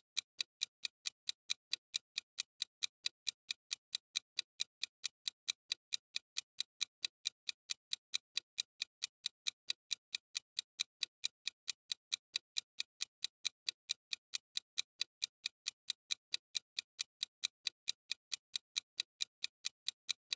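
Clock-style ticking sound effect timing a countdown: rapid, evenly spaced ticks, about four a second.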